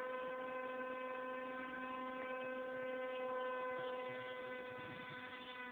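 Distant electric motor and propeller of a Beta 1400 RC motor glider, a steady faint buzzing hum that swells slightly and then fades as the model flies high overhead.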